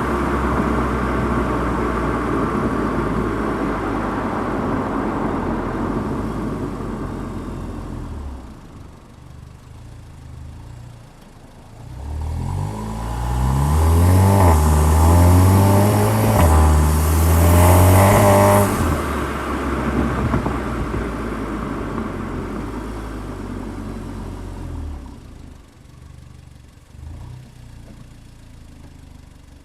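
Car engine heard from inside the car: it runs and fades away, then accelerates hard with the pitch climbing and dropping back at the gear changes, the loudest part, before easing off and fading again.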